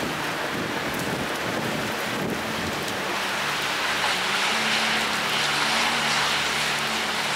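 Rain pouring down in a windstorm, a steady even hiss.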